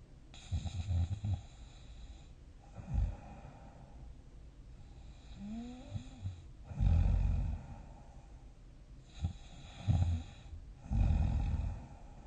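A sleeping person snoring: irregular rough, low snores, some long and some brief, with breathy hiss between them. A short rising squeak-like tone comes near the middle, and the loudest snores come a little past halfway and near the end.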